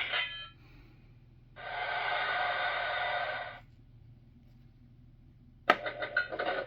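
Fisher-Price Great Adventures Magic Castle toy playing electronic sound clips through its small speaker: the end of one clip, then a noisy clip of about two seconds in the middle. A sharp click a little before the end, and another pitched clip begins.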